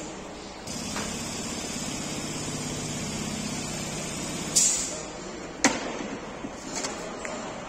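Steady workshop hum, with a short hiss of air about four and a half seconds in and a sharp metallic knock just under six seconds in, followed by a few lighter clicks.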